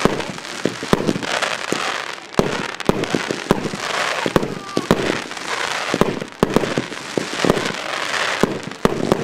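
Fireworks display finale: aerial shells bursting in a rapid, irregular run of sharp bangs over a continuous crackling hiss.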